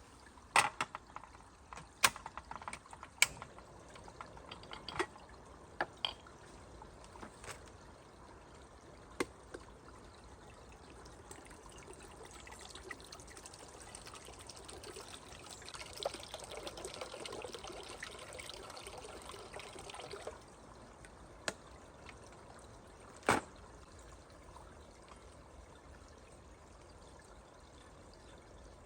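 Water being poured and trickling for several seconds, stopping abruptly about two-thirds of the way in, with scattered sharp knocks and clicks before and after.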